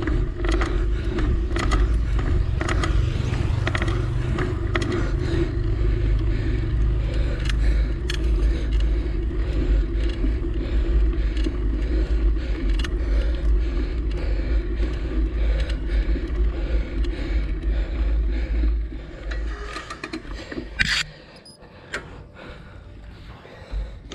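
A motor running steadily with a low rumble, overlaid with frequent rattling and scraping clicks. It cuts off about 19 seconds in, and a single sharp click follows soon after.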